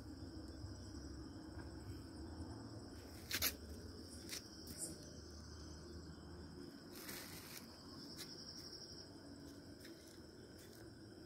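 Night insects chirring in a steady high-pitched tone, with a few sharp clicks about three and four seconds in and a short rustle around seven seconds.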